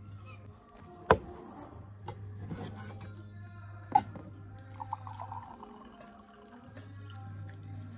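Water poured from a stainless-steel kettle into a mug, with a few sharp knocks of tableware. The loudest knock comes about a second in, another at about four seconds, and the pouring splashes just after it.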